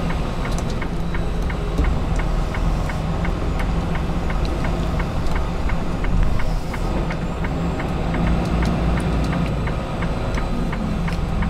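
Semi truck's diesel engine idling, heard from inside the cab, with a turn-signal relay ticking steadily about three times a second.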